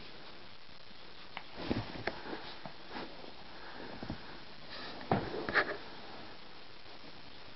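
Shih Tzu sniffing and snuffling in short bursts while it plays, once about a second and a half in and again about five seconds in.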